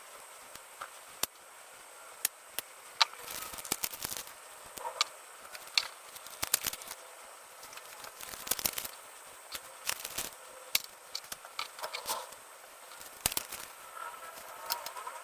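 Scattered sharp clicks, taps and rustles of packaging and a small device being handled during an unboxing.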